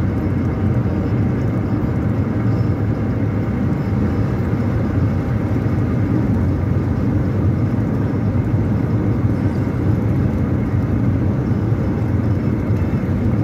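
Steady drone of engine and tyre noise inside a moving car's cabin while cruising on an open road, deep and even throughout.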